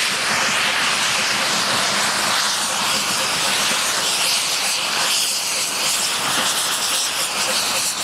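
Steam tank locomotives, Terriers no.55 and 672 with BR Standard 4 tank no.80151, working hard at the head of a passenger train: a steady, loud rush of exhaust and steam hiss.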